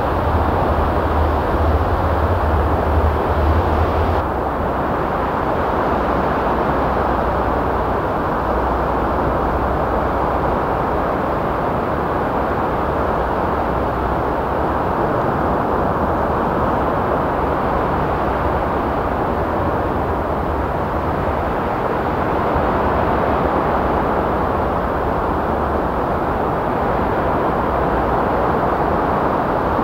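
Sea waves washing in over a shallow sandbar onto a sandy beach: a steady rush of surf. A deep low rumble under it drops away about four seconds in.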